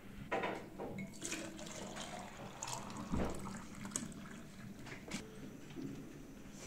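A thick white drink poured from a clay pot into a tall steel tumbler, splashing as it fills. Sharp clinks of steel cups come through, with a dull knock about three seconds in.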